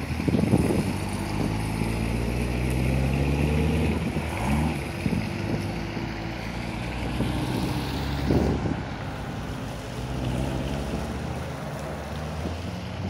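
Chevrolet Corvette C7 Z06 V8 engines running at low speed as the cars pull away one after another, a deep steady rumble. One engine is revved briefly about eight seconds in.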